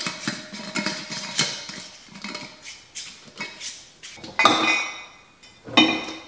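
Whole coffee beans rattling in a glass mason jar as its metal lid is screwed on, with many small clicks. Then two louder knocks about four and a half and six seconds in as the jar is handled and set down on a shelf.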